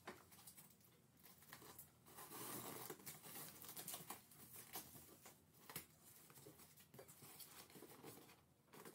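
Faint sound of a box cutter slitting the packing tape along a cardboard carton's seam, with scattered scrapes and rustles of cardboard as the flaps are worked open and the carton is lifted.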